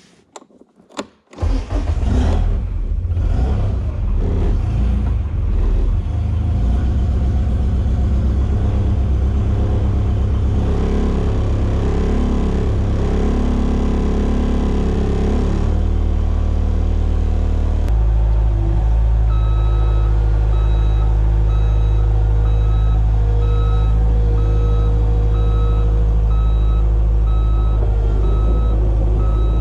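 ASV RC50 compact track loader's diesel engine cranked and starting about a second in, then running with its note varying. Its engine note settles lower at about 18 s. From about 19 s the backup alarm beeps steadily as the loader reverses.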